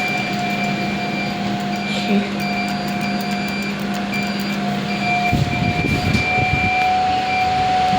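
Passenger lift's machinery running: a steady hum with a constant whine and a higher on-off tone. From about five seconds in, a low rumble replaces the hum.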